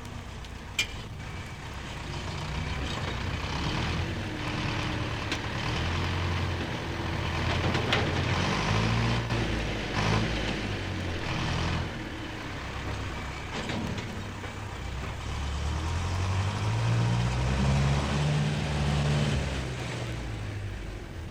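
A heavy vehicle's engine running, its pitch rising and falling as it revs and changes speed, with a few short hisses partway through.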